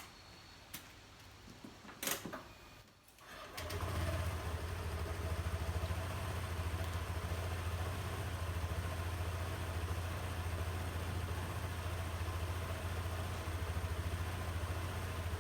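Two light clicks, then a Honda PCX125 scooter's single-cylinder four-stroke engine starts about three and a half seconds in and settles into a steady idle.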